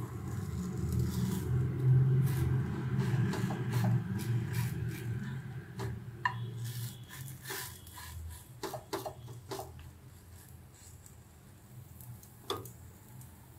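Wooden spatula scraping and tapping against a nonstick pan as a thin crepe is folded and rolled, with a run of short clicks and taps in the second half. A low steady rumble runs underneath and fades away after about eight seconds.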